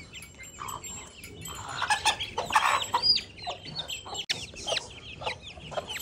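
Chicks peeping over and over in short, high, falling calls, with a hen clucking lower down; the peeping is the distress calling of a chick being caught by hand. A loud, rough burst of noise comes about two seconds in.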